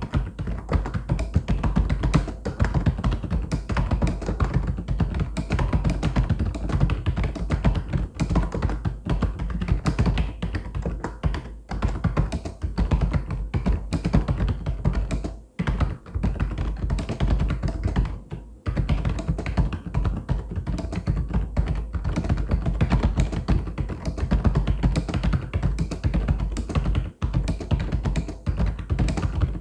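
Continuous fast typing on a mechanical keyboard: a dense stream of key clicks, with two brief pauses about 15 and 18 seconds in.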